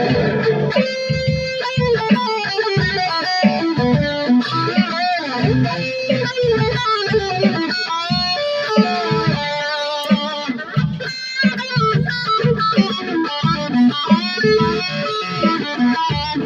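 Electric guitar with a Floyd Rose tremolo played through an amplifier: a continuous run of single notes and short phrases, some notes bending or swooping in pitch. The pickups are wired in an out-of-phase combination, which gives a thin, hollow tone.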